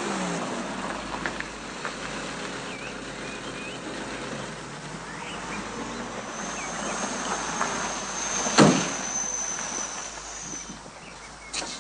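A vintage car drives up and slows to a stop, its engine note falling, with faint chirps in the background. Later a car door slams shut once with a loud knock.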